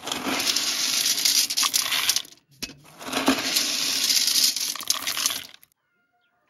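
Dried maize kernels scooped with a cup and poured back into a metal tub: a steady rattling rush of grain in two long pours with a short break about halfway, stopping suddenly about a second before the end.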